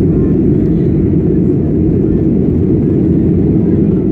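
Steady low rumble of a Boeing 737's jet engines and rushing air, heard from inside the passenger cabin during the climb after takeoff.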